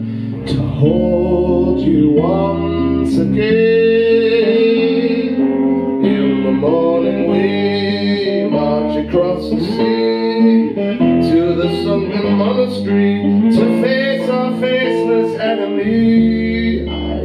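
Electric guitar played live, picked and strummed notes ringing on, with a man singing over it at times.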